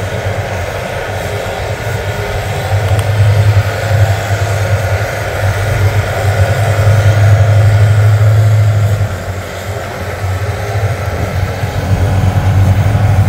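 Motor vehicle engine running with a low, steady drone that grows louder a few seconds in, dips about nine seconds in, then picks up again.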